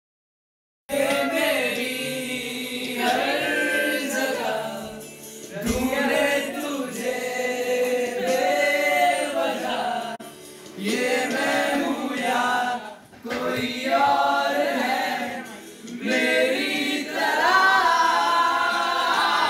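A group of voices singing a song together, phrase by phrase with short breaks between lines, after a second of silence at the start.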